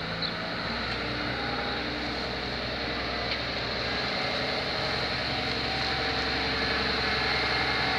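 Fiatagri 980 DT tractor's diesel engine running steadily as the tractor drives slowly, growing gradually louder as it comes closer.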